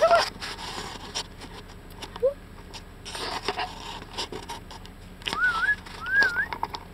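A person whistling: two short, rising, wavering whistles near the end, with a short call right at the start and a brief rush of noise about three seconds in.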